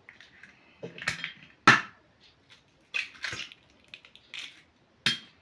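Eggs being cracked open into a stainless steel bowl: several sharp cracks and taps of eggshell, the loudest just under two seconds in.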